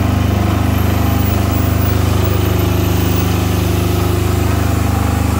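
Silent-type 10 kVA three-phase diesel generator running steadily with an even low drone.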